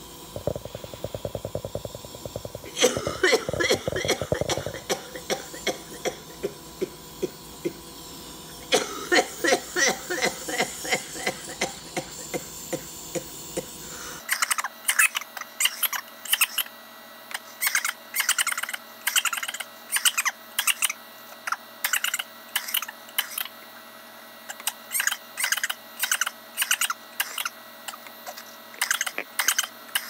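A woman with cystic fibrosis coughing in repeated fits of short, harsh coughs during airway-clearance treatment, wearing an oscillating chest vest and breathing from a hypertonic saline nebulizer. The Vest machine's rapid pulsing runs underneath the coughs.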